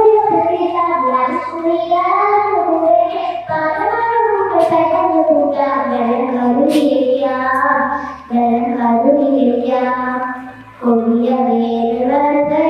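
A young girl singing solo into a microphone, a slow melody in long held notes, with short breaths between phrases.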